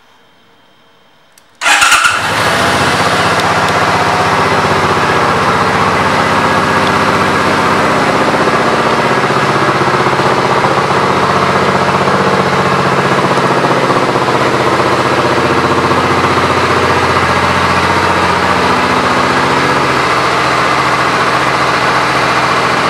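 2006 Suzuki Boulevard C50T's V-twin engine starting about two seconds in, with a short loud burst as it catches, then idling steadily.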